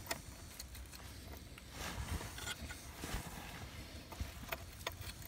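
Faint handling sounds: a few light, sharp clicks of a steel bolt and washers being worked by hand into the pin hole of a muddy steel excavator track link, over low background noise.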